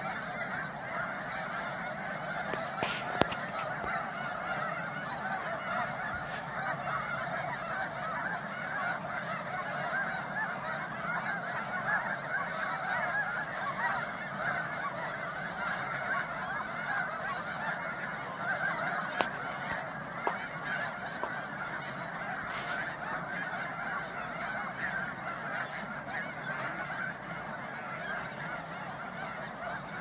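Huge flock of snow geese honking, a dense, unbroken chorus of overlapping calls. Two brief sharp clicks stand out, about three seconds in and again near the middle.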